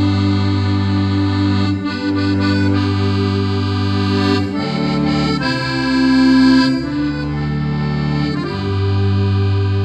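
Piano accordion playing an instrumental passage: sustained chords over steady bass notes, the harmony changing about halfway through and going back to the opening chord near the end.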